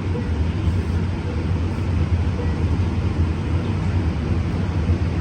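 Siemens Charger SC44 diesel-electric locomotive idling while the train stands in the station, a steady low hum. Its Cummins QSK95 diesel is running at idle.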